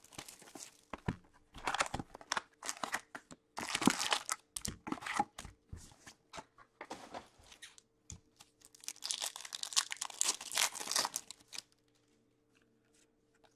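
Foil trading-card pack wrappers crinkling and being torn open, with cards and a cardboard box handled, in irregular rustling bursts that stop about two seconds before the end.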